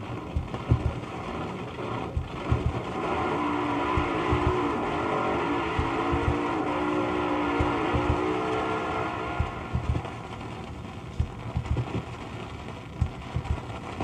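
A recorded drag-racing funny car with a 429 Ford V8, played back from a damaged cardboard record. The engine sound swells about three seconds in, holds for several seconds, then fades near the end, over repeated low thumps and crackle from the worn disc.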